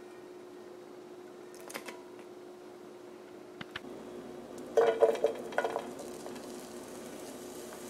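Sliced yellow bell pepper strips dropped by the handful into a non-stick frying pan, a quick cluster of clattering hits with a slight ring from the pan about five seconds in, over a faint steady hum. There is hardly any sizzle: the pan, heated only by tealight candles, is not hot enough to fry.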